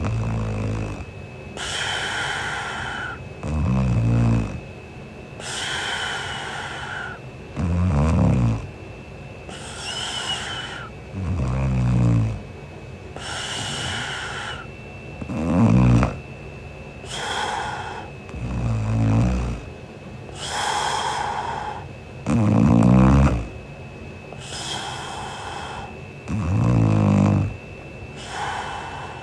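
A sleeping young woman snoring: a rattling snore, then a breathy breath, repeating evenly about every four seconds.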